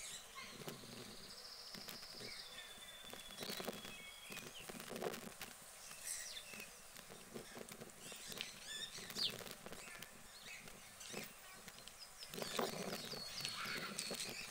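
Small birds chirping and trilling now and then, over soft scattered clicks and rustles of a rabbit picking at seed in a metal trough.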